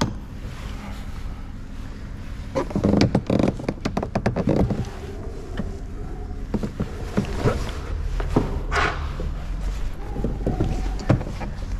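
Hands working on a car's plastic door trim: scattered clicks and knocks, with a few louder scraping rustles of plastic being handled.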